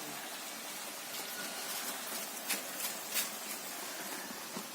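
Batuk fritters frying in hot oil: a steady sizzling hiss with a few faint crackles about two and a half to three seconds in.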